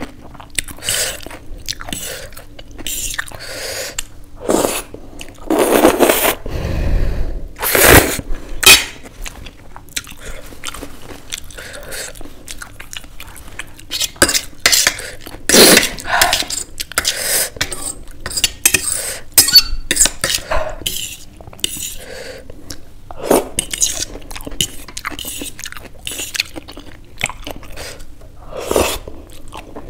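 Eating sounds: a metal fork scraping and clinking irregularly on a stainless steel plate as Maggi noodles are gathered, with chewing of mouthfuls of noodles.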